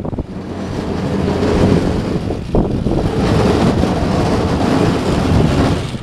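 Battery-powered garden tractor driving forward and pushing snow with its front plough blade, a steady rushing noise that grows louder as it comes closer.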